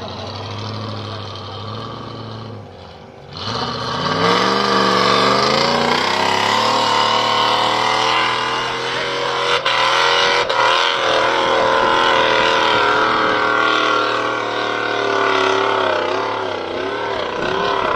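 Off-road 4x4's engine running, dropping off briefly about three seconds in, then revving up hard and held at high revs, its pitch wavering near the end.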